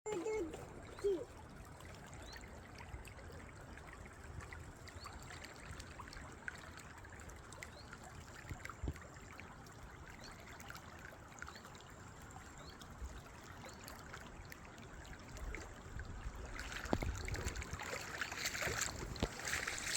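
Water trickling in a small stream, with a short louder sound about a second in; the flow grows fuller and louder for the last few seconds.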